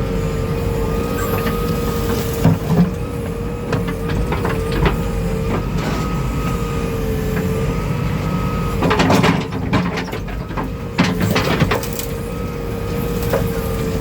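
Diesel engine of a JCB 3DX backhoe loader running steadily with a wavering whine over a low rumble. Several knocks and clatters sound over it, thickest from about nine seconds in.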